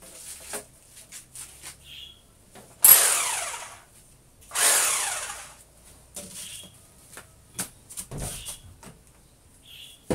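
Corded electric power drill triggered in two short bursts, about a second and a half apart. Each starts abruptly and winds down with a falling whine, with scattered knocks and clicks between.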